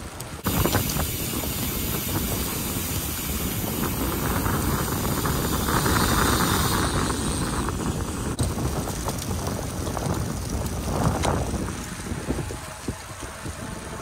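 Wind rushing and buffeting on the microphone of a camera carried low on a moving bicycle, over the hiss of small bicycle tyres rolling on a paved path. The noise jumps up suddenly about half a second in and eases a little near the end.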